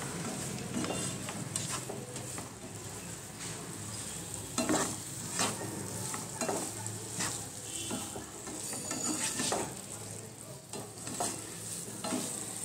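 A plastic spatula stirring and scraping diced pointed gourd and boiled potato around a non-stick frying pan, in irregular strokes about once a second, over a faint sizzle. The cooking water has nearly dried off.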